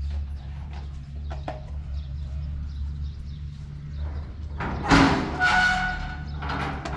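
Metal grille door of a small shrine being unlatched and swung open: a sharp clank about five seconds in, then a short, high metal creak, over a steady low hum.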